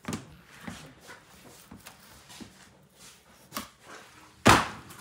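Raw lamb rib rack handled on a stainless-steel butcher's table: a few light knocks, then one loud slap about four and a half seconds in as the rack is set down on the steel.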